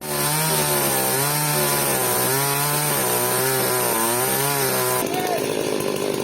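Two-stroke chainsaw cutting through a fallen tree trunk, its engine pitch dipping and recovering as the chain bites. About five seconds in, the sound changes abruptly to a duller, steadier running.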